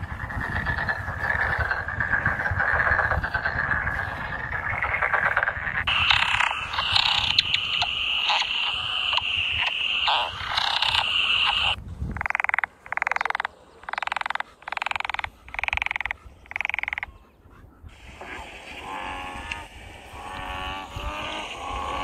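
Frogs calling: a steady trilling chorus, then about halfway six evenly spaced calls, each about half a second long. A low rumble sits underneath in the first few seconds.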